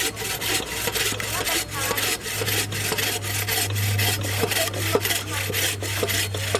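A hand tool working wood in quick rhythmic strokes, a rasping, sawing sound several times a second, with a steady low hum underneath.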